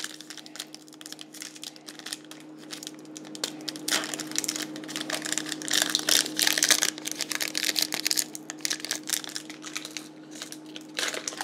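Foil trading-card pack crinkling and tearing as it is worked open with difficulty, the crackling busiest around the middle. A faint steady hum runs underneath.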